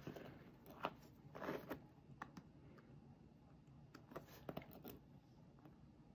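Near silence with a handful of faint ticks and one soft, short scrape about a second and a half in, as an X-Acto knife and fingertips trim and peel copper foil tape on a small piece of glass.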